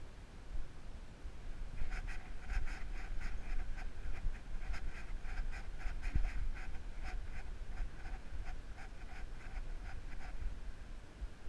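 A dog close to a body-mounted camera makes rhythmic scratchy sounds, about four a second, starting about two seconds in, over a low rumble of wind on the microphone.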